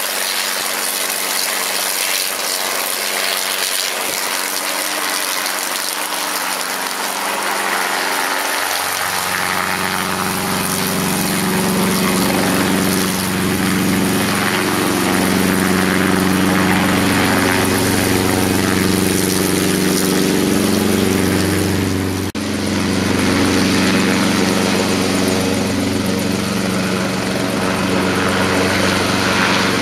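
Brantly B-2B light helicopter in a slow, low hover taxi, its four-cylinder Lycoming piston engine and rotor running steadily. About a third of the way in, the engine's low droning tones come up strongly. Two thirds of the way through there is a brief dip in level.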